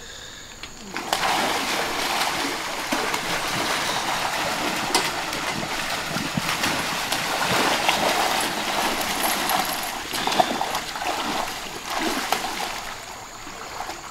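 A dog swimming and splashing in a swimming pool, a continuous churning of water that starts about a second in and dies down near the end.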